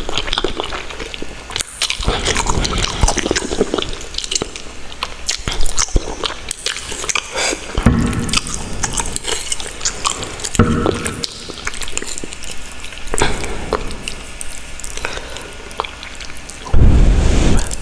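Close-miked wet eating sounds: chewing with many small, moist mouth clicks. A few muffled low bursts come through, the loudest near the end.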